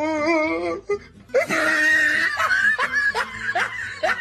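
A person laughing in a run of short bursts, each rising in pitch, about three a second, after a drawn-out wavering vocal sound at the start.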